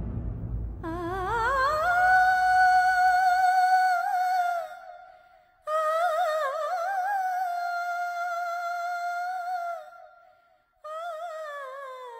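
Background music: a high solo voice singing long drawn-out notes with vibrato, in three phrases. The first slides up into a held note, the second wavers and then holds, and the third falls away near the end. A low rumble fades out in the first few seconds.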